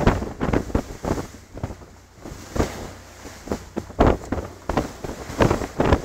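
Wind buffeting the microphone in irregular gusts over a low steady rumble, on a boat's open deck in rough seas.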